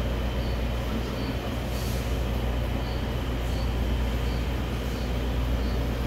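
Steady low rumble of a running vehicle.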